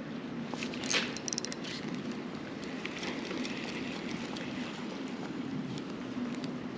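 Steady low rush of a creek flowing. About a second in comes a sharp click, then a quick cluster of small clicks and rattles as the spinning rod and reel are handled.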